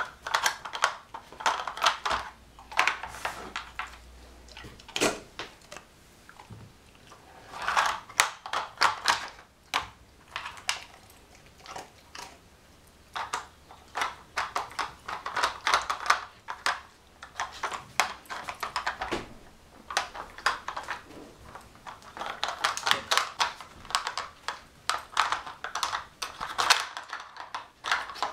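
Nina Ottosson dog puzzle toy: hard plastic bone-shaped pieces clicking and clattering against the plastic tray as a rough collie noses and lifts them. The clicks come in rapid bursts with short pauses between.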